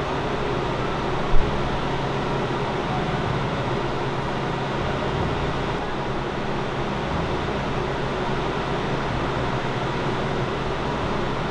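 Steady mechanical hum of a refrigerated display case's fan and compressor, with one short knock about a second and a half in.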